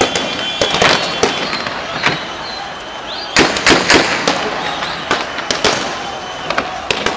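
Gunfire: a dozen or more sharp, irregular shots, bunched closely about halfway through.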